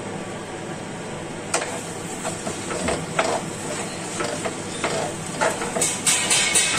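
Spatula stirring and scraping rice and lentils frying in a non-stick kadai, irregular scrapes and knocks starting about a second and a half in, over a steady hiss. Near the end a rhythmic background music comes in.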